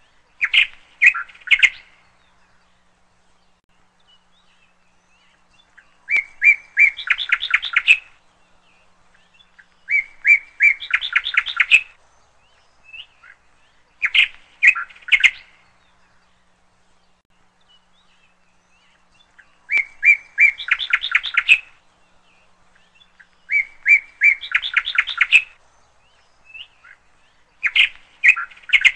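Small bird chirping in quick trilled phrases about two seconds long, repeated roughly every four seconds.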